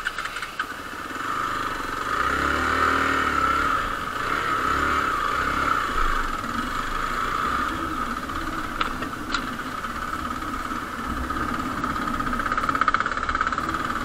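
Hero Xpulse 200's single-cylinder engine running steadily as the motorcycle is ridden over a rough dirt track, its pitch rising and falling a little about two to four seconds in.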